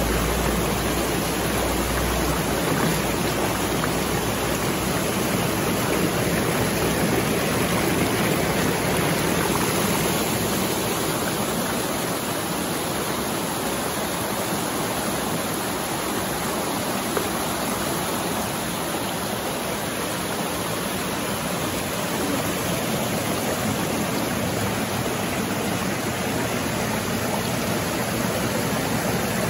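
River water rushing steadily over a shallow streambed.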